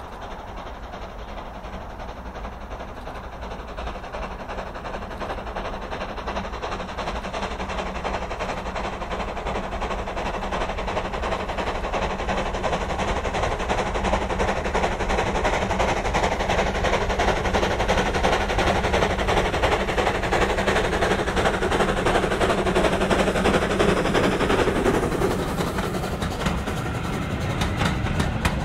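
Stroudley LB&SCR 'Terrier' 0-6-0 tank engine working hard up a steep gradient: rapid, sharp exhaust beats growing steadily louder as it approaches. They peak a little over 20 seconds in and drop away at about 25 seconds as it passes, leaving the train's wheels clicking over the rail joints.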